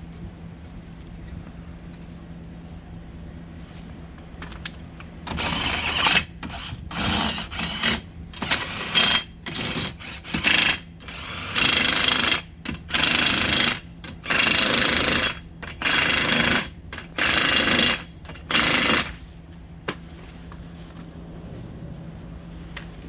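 Pneumatic impact wrench running lug nuts onto the spare wheel in about a dozen short bursts of hammering. Each burst lasts under a second, with brief pauses between them. Before and after the bursts there is a steady low hum.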